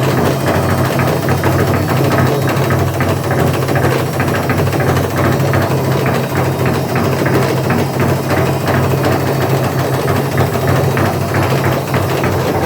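Wagner washing machine running, its drum turning with a steady low hum and a fast, continuous rattle. This is the noise that the repairer puts down to a broken drum spider (the cross-piece holding the drum), a part that usually cracks after 10–15 years.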